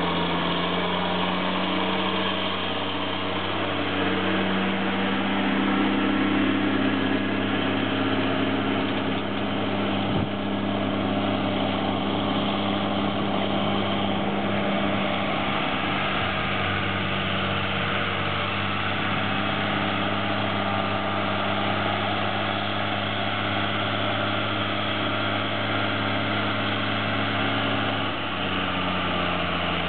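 Large diesel tractor engine running steadily under load, a low even drone that shifts slightly in pitch twice. A single sharp click is heard about a third of the way in.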